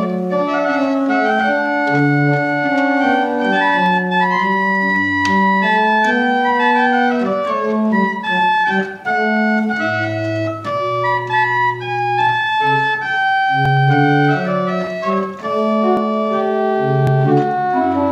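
Church pipe organ playing a voluntary: held notes in several parts moving from chord to chord, over low bass notes that come and go.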